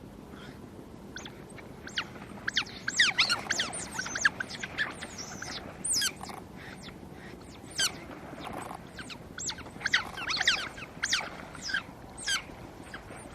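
Smooth-coated otters squabbling, with rapid high-pitched squeals and chirps. Many short calls slide down in pitch, in clusters, loudest about three and ten seconds in.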